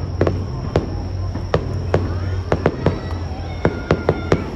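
Fireworks going off in an irregular series of about a dozen sharp bangs and pops.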